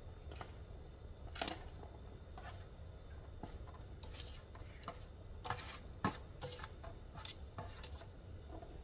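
Shredded chicken being swept by hand off a metal sheet pan into a skillet: soft scraping and rustling, with scattered light clicks and taps of metal on the pan, over a low steady hum.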